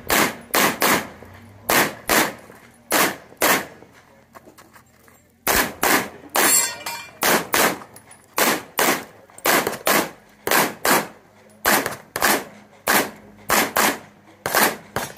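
Rapid pistol fire in an IPSC stage run: shots mostly in quick pairs about a third of a second apart, with a break of about a second and a half partway through while the shooter moves to a new position, then steady pairs again to the end.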